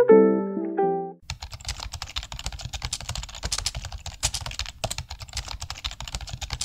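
Rapid computer-keyboard typing, many quick clicks in a row, starting about a second in as a short plucked-guitar music phrase ends.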